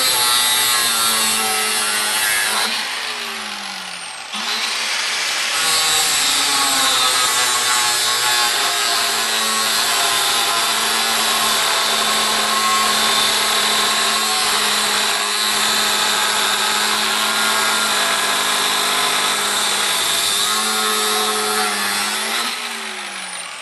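Corded DeWalt angle grinder with a thin cut-off wheel cutting into the metal case of a large pulse capacitor: a steady whine over a harsh grinding hiss. The motor winds down about three seconds in, starts again a second later, and winds down again near the end.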